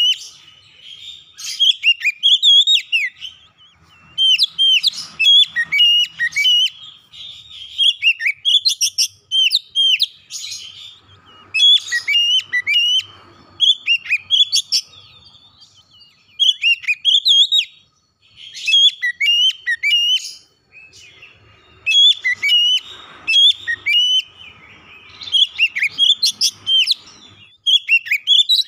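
Oriental magpie-robin (kacer) singing: loud phrases of quick, slurred, varied whistles, in bursts of one to two seconds with short pauses between them.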